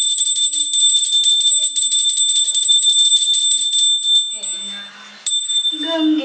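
Pooja hand bell rung rapidly and without a break, a steady high ring. It stops about four seconds in and is struck once more about a second later. Near the end a woman starts singing the aarti.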